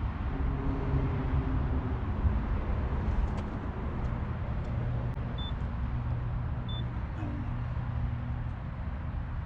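Steady low rumble of background noise with a faint hum. About halfway through come two short, high electronic beeps about a second apart, of the kind a keypad door lock gives when its buttons are pressed.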